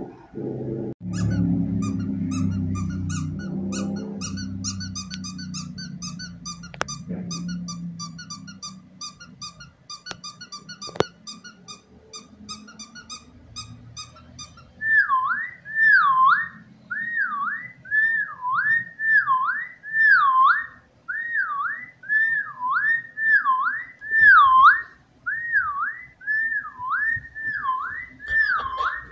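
A whistle-like tone that swoops down in pitch and back up, repeated about once a second through the second half. Before it comes a low hum under fast, even high-pitched ticking.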